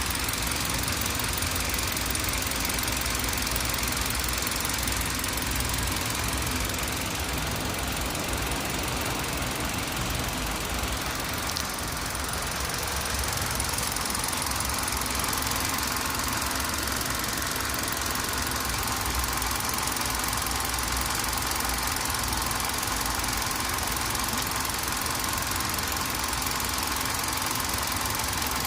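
Car engine running steadily with a continuous clunking knock that sounds like marbles.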